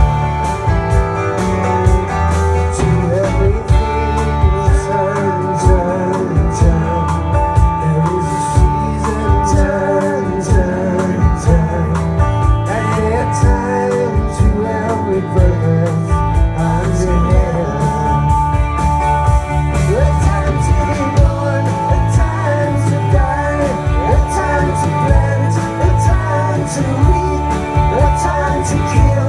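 Live rock band playing: guitars over a stepping bass line and drums.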